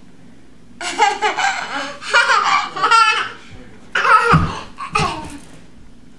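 A toddler laughing and giggling in several bursts, with a couple of low thumps about four and five seconds in.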